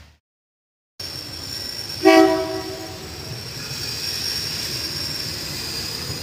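A Daewoo diesel railcar train approaching the station blows its horn once, a short loud blast about two seconds in that fades out, over the steady rumble of the train drawing nearer. The sound cuts in after a second of silence.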